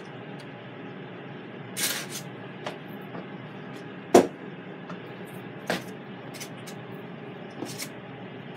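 Kitchen handling noises over steady background hiss: a short rustle about two seconds in, one sharp knock about four seconds in, the loudest, then lighter clicks and another rustle near the end.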